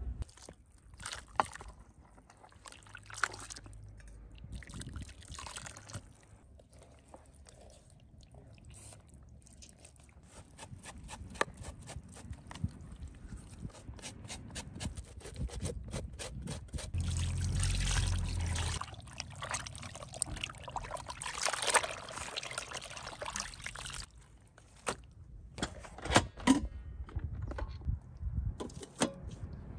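Water sloshing, trickling and dripping as raw beef tongue is rubbed clean by hand in a plastic bowl of water, with a knife scraping over the tongue's rough surface partway through. Scattered light clicks and knocks near the end as the tongue goes into a steel cooker pot.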